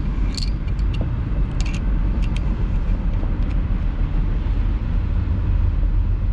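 A few light metallic clinks in the first half as a hydraulic hose coupler is threaded onto the port of a hand-held hydraulic cylinder, over a steady low rumble.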